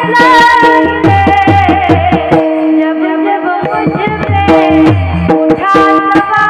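Devotional music interlude: a tabla plays a steady rhythmic beat under long held melody notes, with no sung words.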